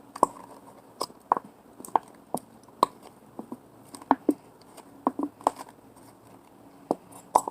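Irregular sharp clicks and taps, about a dozen, as the last of the glue is worked out of a plastic glue bottle into a bowl.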